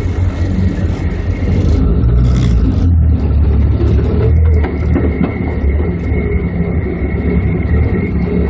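Off-road truck's engine running loud and low as the rig drives slowly forward, the level swelling and dipping a little with the throttle, with a thin steady high whine alongside.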